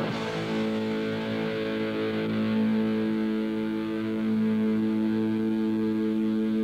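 Music on distorted electric guitar: a chord struck near the start and held, ringing steadily.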